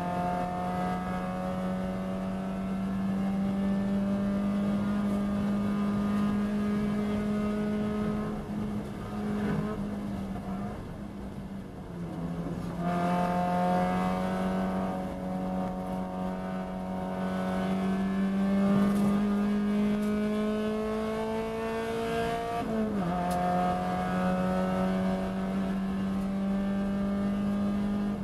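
Mazda Miata race car engine heard from inside the cockpit, pulling hard with its note climbing slowly. The revs drop sharply twice, about twelve and about twenty-three seconds in, and climb again each time.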